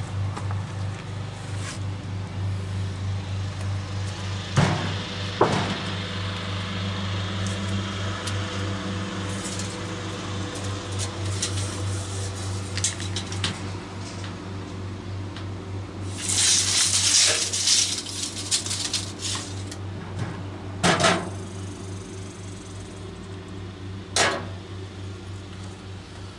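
Wooden boards knocking and scraping as they are handled and shifted: a couple of sharp knocks about five seconds in, a longer scraping rush a little past halfway, and two more knocks near the end, over a steady low hum.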